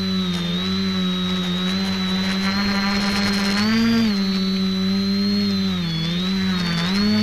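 X550 multicopter's electric motors and propellers whining close to the onboard camera, a steady pitched hum with a high whine above it. The pitch rises briefly about four seconds in and dips twice near the end as the motor speed changes.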